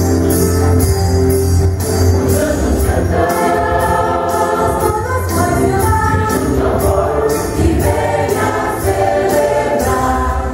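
Church choir singing an upbeat Christmas song in Portuguese over instrumental accompaniment, with a steady percussion beat and a sustained bass line.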